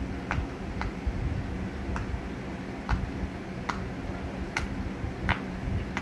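Pink square silicone pop-it fidget toy having its bubbles pressed in by a finger one at a time, giving small sharp pops. There are about seven, roughly a second apart.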